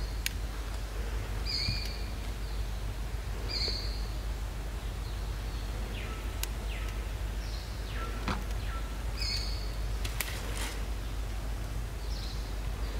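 Forest ambience: a bird repeats a short, high, flat note every two seconds or so, with other brief downward chirps and a few sharp clicks, over a steady low rumble.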